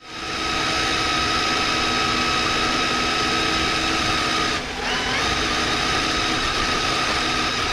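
RC rock crawler's electric motor and gears whining steadily as it drives, easing off briefly a little past halfway before picking up again.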